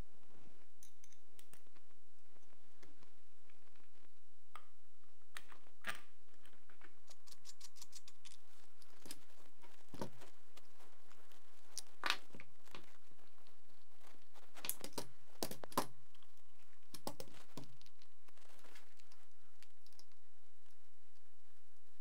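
Scattered clicks and knocks of RPK machine-gun parts and hand tools being handled and fitted together on a workbench during reassembly, with a quick run of fine ticks about a third of the way through and the sharpest knocks in the second half.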